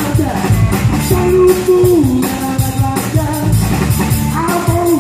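Rock band playing: drums and bass under held pitched notes that slide down at the ends of phrases.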